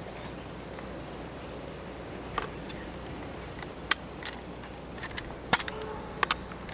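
Small screwdriver prying at the seam of a cheap plastic walkie-talkie's battery cover: a handful of scattered sharp clicks of metal on hard plastic over a few seconds, the loudest a little after five seconds in. The case is being forced because its cover won't open.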